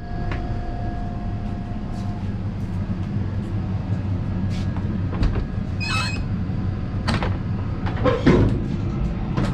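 Steady rumble and rattle of an Indian Railways passenger coach on the move, heard from the vestibule. About five seconds in, the steel toilet door's latch clicks, and the door gives a short squeak near six seconds as it is opened, followed by a couple of knocks.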